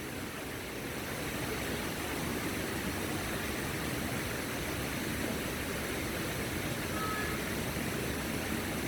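A waterfall rushing: a steady, full roar of falling water that grows a little louder over the first two seconds.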